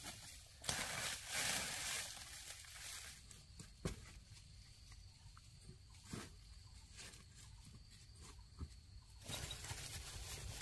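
Dry banana leaves rustling and crackling as they are pulled by hand, followed by a quieter stretch with a few sharp snaps, then dried banana fibre being torn near the end.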